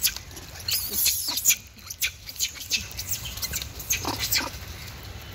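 A troop of rhesus macaques giving many short, high-pitched squeaks and squeals while they scamper and play-fight, with a few lower calls about four seconds in.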